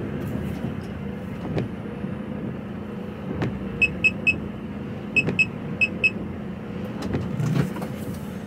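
Diesel lorry engine running slowly, a steady drone heard from inside the cab. Between about four and six seconds in, a high electronic beeper sounds in three quick groups of short beeps.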